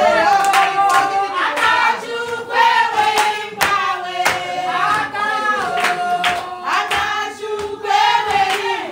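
A group of women singing together in a celebratory chant, with rhythmic hand-clapping running under the song.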